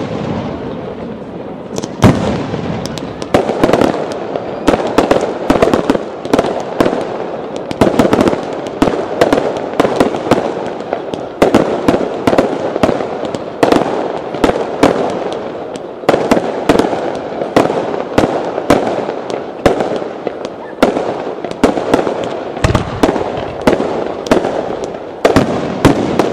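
Aerial fireworks going off in an unbroken barrage: sharp bangs of bursting shells, about two a second, over a continuous din of crackle and echo.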